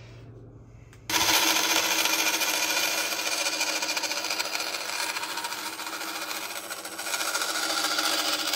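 Bandsaw blade cutting through aluminium plate, a steady rasping noise that starts abruptly about a second in.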